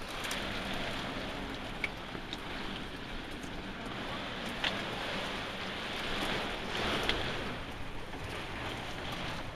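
Heavy wind-driven thunderstorm rain pouring down as a steady rushing hiss, with a few sharp ticks of drops or hailstones striking close by.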